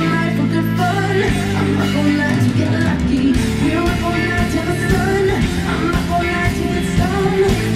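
Music: a song with singing and guitar, with a steady beat coming in about three seconds in.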